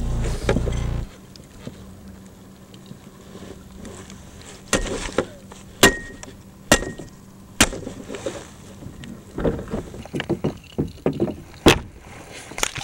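Several sharp whacks about a second apart, one more near the end, two of them with a brief ringing tone: a baseball bat clubbing a salmon in the landing net beside the kayak.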